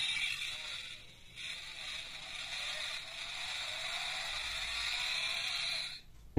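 Electronic engine-start sound effect played through the small speaker of a die-cast pullback toy Land Rover Defender, set off by pressing its bonnet. A short burst is followed by a brief break about a second in, then a simulated engine running with a rising pitch in the middle, cutting off near the end. It only imitates a car starting.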